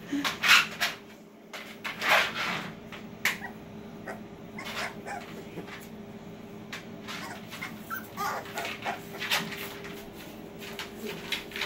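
Three-week-old American Bully puppies whimpering and squeaking in short, scattered bursts as they crawl about, the loudest in the first few seconds, over a steady low hum.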